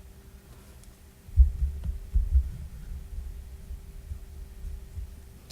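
Low, irregular thumps and rumble, handling noise on the work surface, starting about a second in and loudest at the start, over a steady faint hum.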